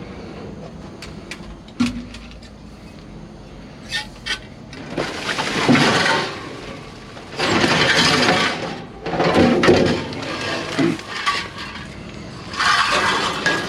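Hands rummaging through discarded items: a few sharp knocks early on, then several long bursts of rustling and scraping.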